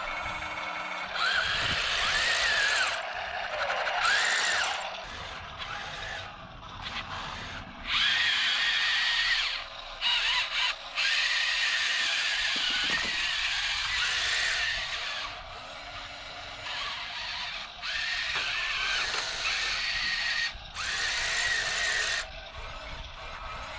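Small geared electric drive motors of 1/30 scale Heng Long RC battle tanks whining in several stop-start bursts, their pitch rising and falling as the tanks speed up and slow down.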